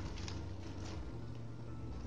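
Plastic wire weaving strands rustling and lightly ticking against each other as hands thread them through a woven basket bag, over a low steady hum.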